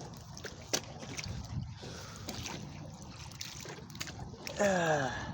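Water sloshing and lapping at the lake's edge with a few small knocks as plastic rubbish is reached for and pulled out. Near the end comes a short voice sound that falls in pitch.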